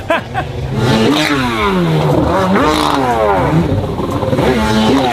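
Stand-up jet ski engine revving hard. Its pitch rises and falls several times as the rider throttles up and off, pitching the ski nose-up to try a backflip.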